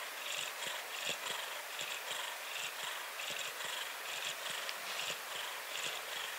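Brown mackerel tabby cat purring steadily while lying relaxed, a sign of contentment.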